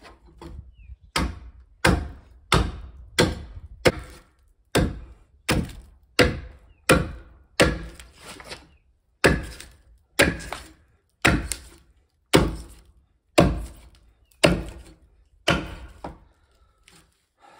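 Hand axe hewing the side of a fresh, barked log flat: about twenty steady chopping strikes into the wood, roughly one every three-quarters of a second, stopping near the end.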